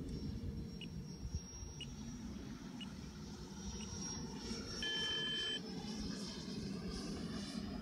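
Electric ducted-fan model jet flying high: a thin steady whine over a low rumble. About five seconds in there is a short electronic beep, a chord of several steady tones lasting under a second.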